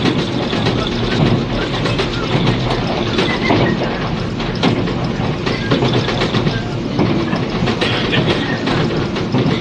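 Cabin running noise of a 485 series limited-express electric train under way: a steady rumble of wheels on rail with irregular clicks from the rail joints, under cassette-tape hiss.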